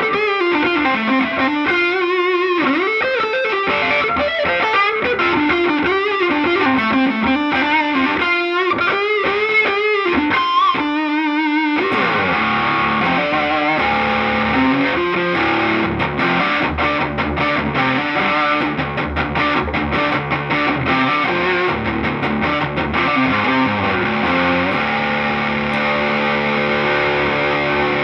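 Gibson Les Paul Classic electric guitar played through an amp with distortion. For about the first twelve seconds it plays single-note lead lines with string bends and vibrato, then switches to distorted chord riffing, with a held chord near the end.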